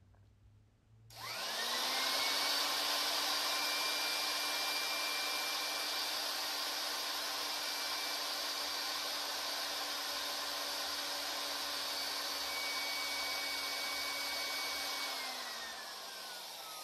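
Vintage electric drill driving a Versamatic 4400 speed-reducer gearbox, starting up with a quick rise in pitch about a second in. It runs at a steady whine with its bit in a wood block, then winds down with a falling pitch near the end.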